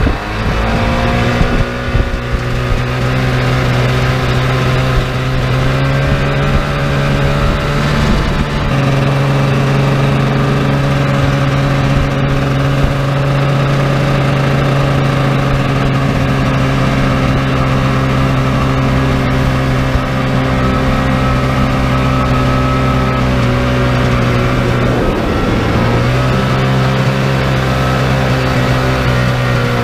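Sea-Doo 787 two-stroke twin-cylinder engine driving a jet boat, running at steady high revs. Its pitch climbs about a second in and again around eight seconds, drops briefly near the end and then comes back up.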